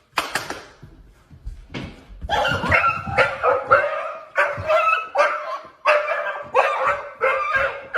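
A dog barking and yipping in a long string of short, whiny calls, about three every two seconds, after a few sharp knocks in the first two seconds.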